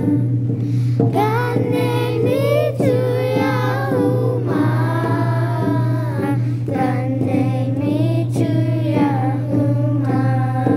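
Children singing a song with held, gliding notes over instrumental accompaniment that has a steady low drone underneath.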